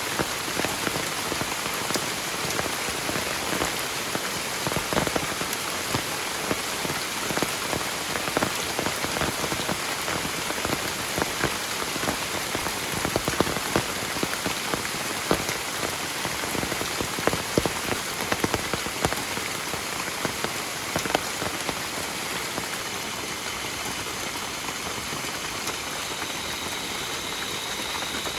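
Heavy rain falling steadily, a dense hiss with many individual drops striking sharply, some louder near the middle.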